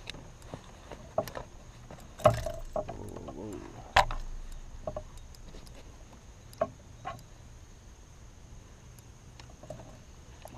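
Scattered taps and knocks of a freshly landed largemouth bass flopping on the line and being handled in a canoe, with two louder thumps about two and four seconds in.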